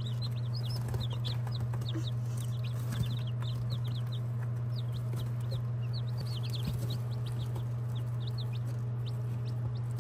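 A brood of baby chicks peeping, many short high cheeps coming thick and fast throughout, over a steady low hum.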